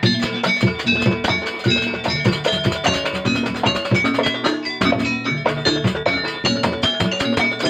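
Live band playing an instrumental passage: fast, dense drum strikes under a bright melody line, with no singing.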